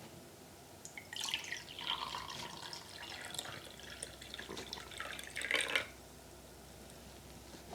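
Liquid poured into a cup for a Foley recording of coffee, a splashing trickle that starts about a second in, swells near the end and stops after about five seconds.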